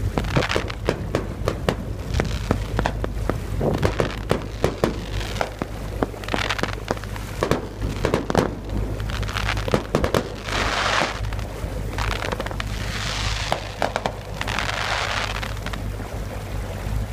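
Fireworks going off: a run of sharp pops and crackles throughout, with several longer hissing bursts about ten seconds in and again a few seconds later.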